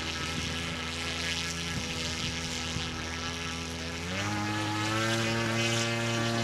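Radio-controlled model airplane's motor and propeller running steadily, then throttled up about four seconds in to a higher, louder pitch that holds.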